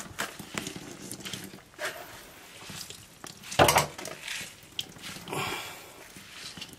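Grated raw potato squeezed by hand in a metal sieve to press the water out, giving soft wet squelching with irregular small clicks and drips into the bowl below. One louder bump about halfway through.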